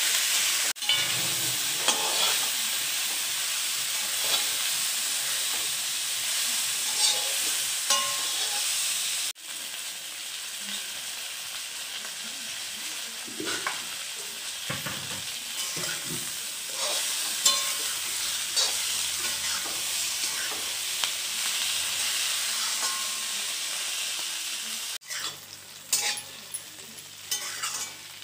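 Bhindi (okra) masala with potato and onion frying in oil in a metal kadai: a steady sizzle, with a metal spatula scraping and clicking against the pan as it is stirred. Near the end the sizzle drops and the spatula's clicks stand out more.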